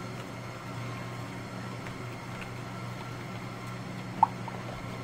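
A spoon stirring in a clear plastic cup, with a few faint ticks and one short, sharp clink about four seconds in, over a steady low hum.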